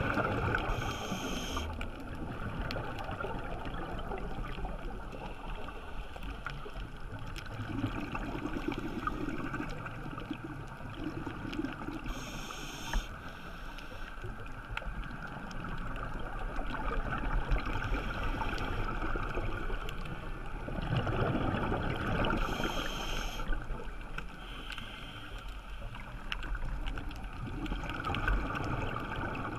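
Scuba regulator breathing heard underwater: three short hisses of inhalation come about ten seconds apart, and between them are swells of bubbling, rumbling exhalation, over a steady hiss of water.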